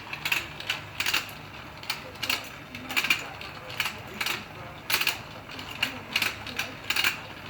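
Battery-powered toy fishing game running: a low motor hum under irregular clicking and clacking from the turning pond mechanism, a few clicks a second.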